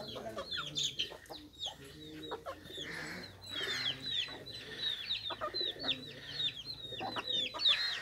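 Young Aseel chickens clucking, with a steady stream of many short, high, falling chirps throughout.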